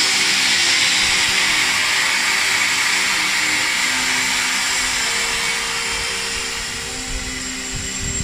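Steam hissing steadily from BR Standard Class 9F steam locomotive 92134, the hiss slowly easing toward the end.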